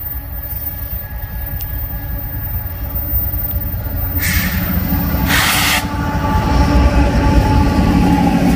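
Freight train with diesel locomotives, the rumble growing steadily louder as it approaches. Two short bursts of hiss about four and five seconds in.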